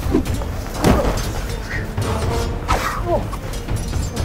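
Background music over a scuffle in snow: a few sharp hits about a second in and near three seconds, with short grunts or yells.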